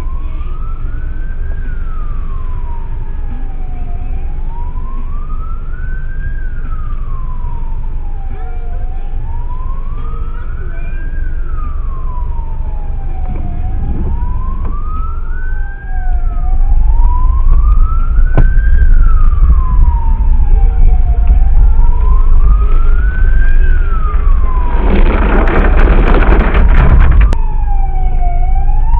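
Emergency vehicle siren in a slow wail, rising and falling evenly about every five seconds, over the steady low rumble of traffic. About halfway through the rumble gets louder, and near the end a loud rush of noise lasts about two seconds.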